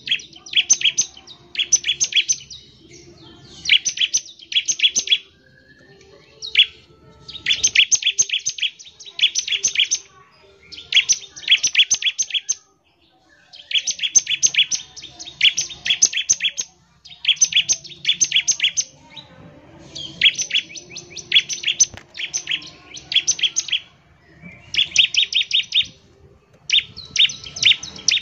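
Bar-winged prinia (ciblek) singing its rapid 'ngebren' chatter: repeated bursts of fast, sharp, high notes, each burst about a second long with short pauses between.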